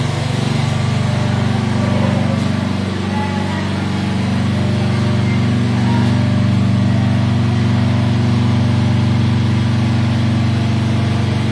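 A motor or engine running steadily, a constant low hum.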